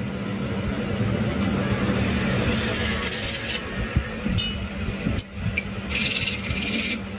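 An electric workshop power tool's motor runs with a steady hum. It is joined twice by stretches of hissing cutting or sanding noise on wood, and there is a light metallic clink about halfway through.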